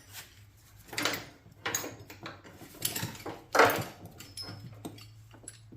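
Steel track chain and a small chain binder clinking and rattling as they are hooked together and worked, in several separate clanks, the loudest about three and a half seconds in.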